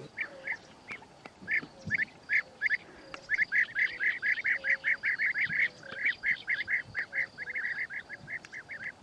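A flock of waterfowl calling in short, repeated calls. They come a few at a time at first, then in a quick run of several a second from about three seconds in, and thin out again near the end.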